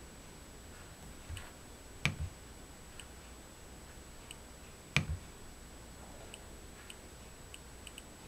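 First-generation Nest Learning Thermostat giving faint ticks as its outer ring is turned to change the temperature settings, with two louder clicks, about two and five seconds in, as the unit is pressed to select.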